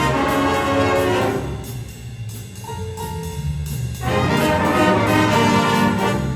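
Big band playing, with the brass section in ensemble chords. It drops back about two seconds in, then the full band comes in loud again about four seconds in.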